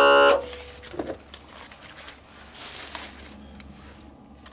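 A loud held tone with many steady overtones cuts off abruptly about a third of a second in. After it come faint clicks and rustles of hands and a tool working at an outboard motor's lower gearcase.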